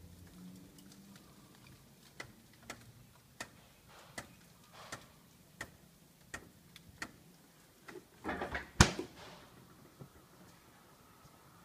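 A run of light, evenly spaced clicks, about one every 0.7 seconds. Then a short rustle and a sharp knock near the end as the refrigerator-freezer door is swung shut.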